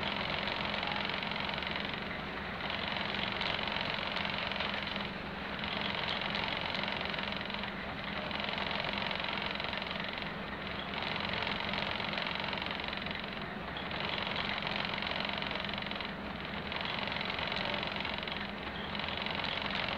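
Class 121 diesel railcar's underfloor diesel engines idling steadily while the railcar stands, with a slow regular waver in the sound about every two and a half seconds.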